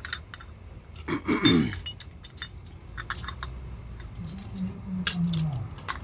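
Metal clinks and rattles from a C-clamp being set on a Ford Bronco front brake caliper and wound in to push the caliper piston back for new pads. A louder rasping sound that falls in pitch comes about a second in, and a low drawn-out tone that sags near the end follows later.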